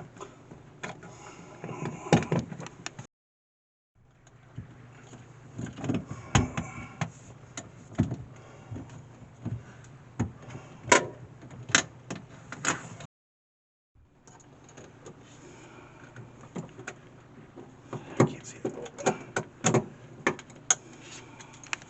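Metal clicks, knocks and clanks of bolts being fitted and tightened into the sheet-metal refrigeration unit cover of a vending machine, over a steady low hum. The sound is broken twice by a second of dead silence.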